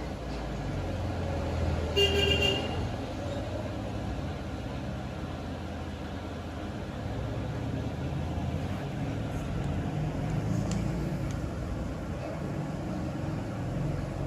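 Low, steady traffic rumble with one short vehicle horn toot about two seconds in.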